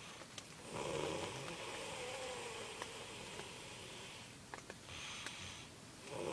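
A man snoring in his sleep: one long snoring breath starting about a second in and lasting about three seconds, a shorter breath around five seconds in, and the next snore beginning at the end.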